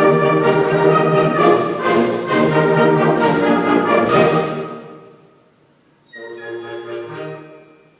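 Orchestral music with brass, punctuated by a sharp percussion strike about once a second. It fades out about five seconds in, and a quieter phrase follows about a second later.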